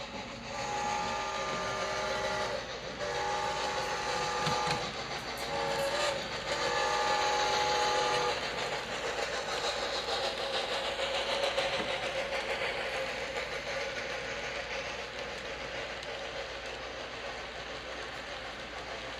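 HO-scale J3 Hudson model steam locomotive sounding a chime steam whistle in several blasts over the first eight seconds. After that comes the steady rolling rattle of the train's wheels on the track, fading slowly as the cabooses pass.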